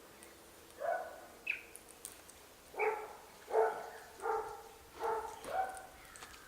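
A series of about six short, clear animal calls, spaced roughly a second apart, starting about a second in.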